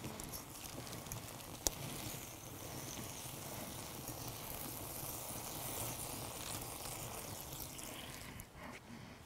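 Wood fire burning in an open grill: a steady hiss with scattered small crackles and one sharp crack just under two seconds in.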